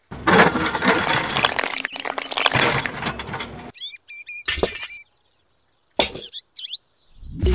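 Gritty wet cement mix pours out of a tin-can toy cement mixer drum into a small plastic bucket, a crackling rush lasting about three and a half seconds. A few sharp clicks and short high chirps follow.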